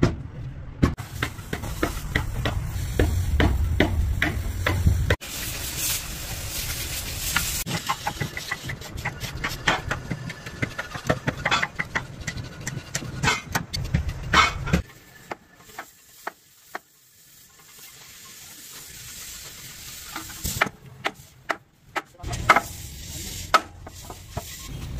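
Workshop sounds of hand work on diesel engine parts: many short clinks and knocks of tools and parts being handled, with a stretch of hissing noise. The background changes abruptly several times.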